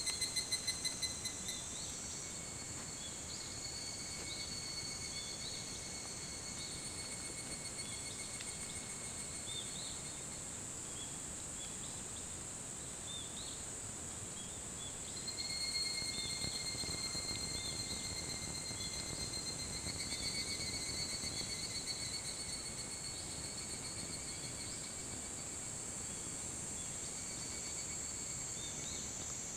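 Several higurashi (evening cicadas, Tanna japonensis) calling together, with high, ringing, overlapping calls. The calls pulse rapidly at first, then run steady, and a new, louder call sets in about halfway through.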